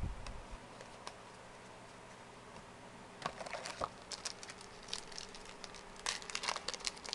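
Trading cards and their pack wrapper being handled: light rustles and crisp crinkles in two short flurries, about three seconds in and again near the end, with quiet between.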